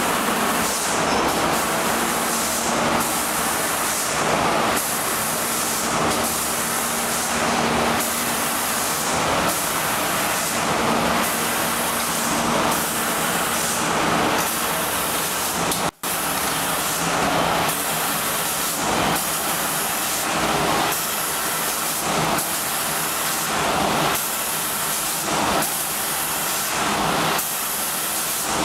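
Automatic spray painting line running: a steady hiss of air spray guns and machinery, the hiss surging and easing about once a second. It cuts out for an instant about halfway through.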